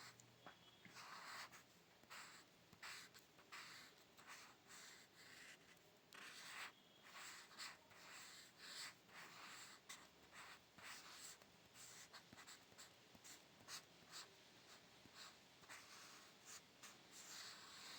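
Pencil scratching on paper in many short, irregular strokes, faint.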